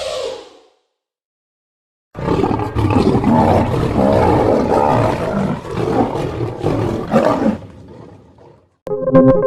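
A big cat roaring: one long, rough roar of about five seconds that trails off into a quieter rumble.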